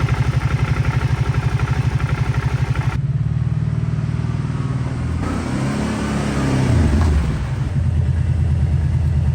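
2011 Kawasaki Brute Force 750's V-twin engine idling roughly in a steady train of pulses, its speed swelling up and dropping back around the middle before returning to idle. This is the rough idle that the owner suspects comes from a faulty idle air control valve.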